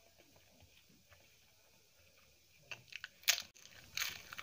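Faint chewing, then about three seconds in a run of sharp crunches as a crisp papad (thin fried lentil wafer) is bitten and chewed.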